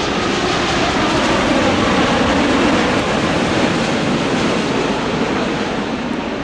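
Jet airliner engine noise, loud and steady, with a faint tone sliding slowly down in pitch during the first couple of seconds.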